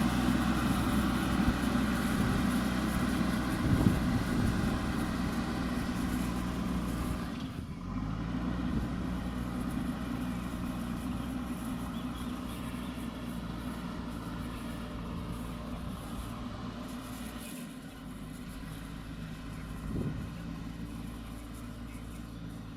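Diesel engine of a JCB backhoe loader running steadily, gradually getting quieter, with a sharp knock about four seconds in.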